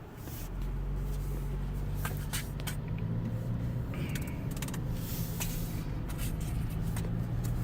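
Steady low drone of a car driving slowly, heard from inside the cabin, rising in just after the start, with a few scattered light clicks and knocks.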